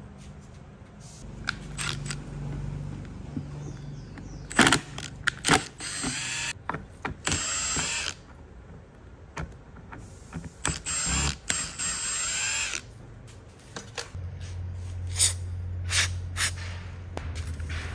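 Hand tools on a rusty chainsaw engine: screws clicking, scraping and squeaking as they are worked loose with a screwdriver. In the last few seconds a small electric driver starts running with a steady low hum.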